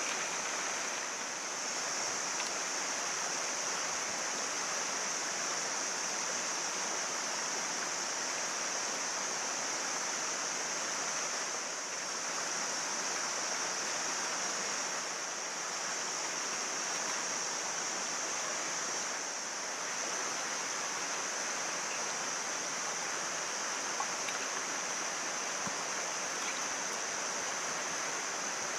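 Mountain stream running steadily: a constant rush of water with a steady high hiss on top.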